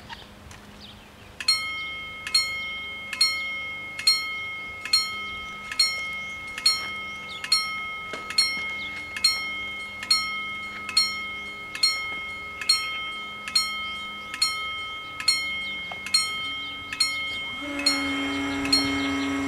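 Level crossing warning bells start about a second and a half in and ring steadily, a little over one strike a second, each strike ringing on: the crossing has activated for an approaching train. Near the end a steady motor hum joins, as the barriers begin to lower.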